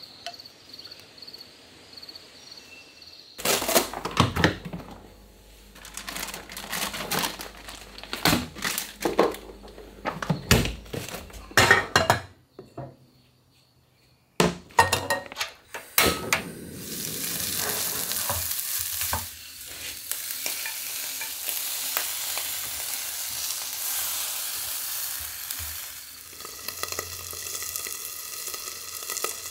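Cookware and utensils clattering and knocking on a camp stove, then, after a short gap, a steady sizzle of food frying in a pan that lasts to the end. Faint insect chirping is heard at the very start.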